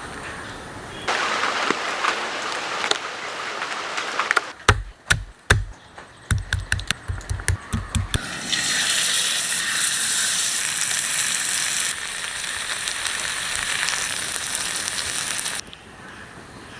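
Fish frying in hot oil: a steady sizzle, broken about four seconds in by a few seconds of quick knocks and clicks, then a louder, brighter sizzle that drops away suddenly near the end.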